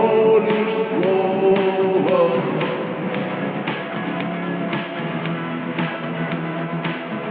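Doomerwave edit of a Russian post-punk rock song: slowed, lo-fi band music. Held notes ring over the first two seconds, then the instrumental goes on with a drum hit about once a second.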